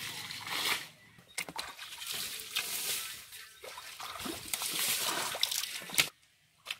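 Muddy pond water splashing and trickling as buckets of water are flung out over a mud bank, bailing the pond dry to get at the fish, with repeated sharp splashes. The sound cuts off suddenly about six seconds in.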